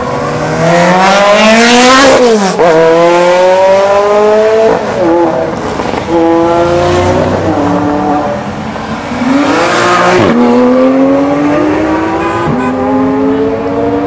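Several supercar engines accelerating hard one after another, each revving up through the gears; the pitch climbs and drops back sharply at every upshift, several times over.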